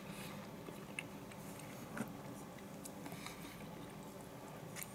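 Quiet eating sounds: soft chewing with a few light clicks of chopsticks against a ceramic rice bowl.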